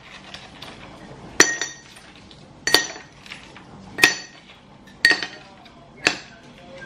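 Kitchenware clinking: five sharp clinks about a second apart, each ringing briefly on the same bright note, like a hard dish or utensil struck repeatedly.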